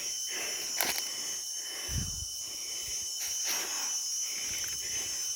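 Steady high-pitched drone of crickets or other insects, with a hiker's heavy, breathless breathing and a low thump about two seconds in.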